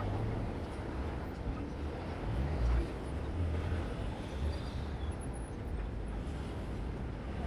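Street traffic at a busy city intersection: a steady low rumble of passing cars and trucks, swelling briefly a little under three seconds in.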